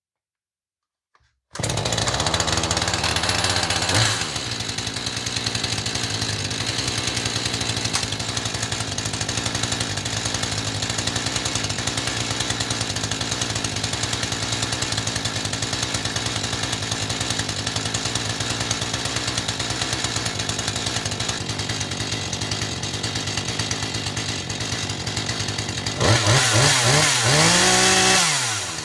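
Husqvarna 435 X-Torque two-stroke chainsaw engine that begins running abruptly about one and a half seconds in and runs fast for a couple of seconds. It then settles to a steady idle. Near the end it is revved up and falls back. This is the saw running after repair of a fault that had kept it from starting.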